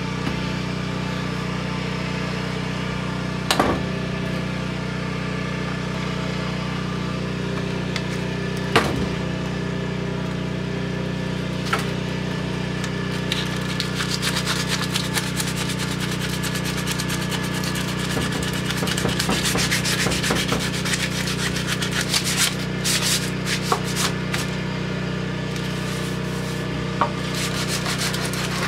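Sandpaper rubbing back and forth on a wooden axe handle, hand-sanding old paint and finish off the Collins double-bit axe's handle. The strokes grow busier from about halfway through. A steady low hum runs underneath, and single knocks come about three and a half and nine seconds in.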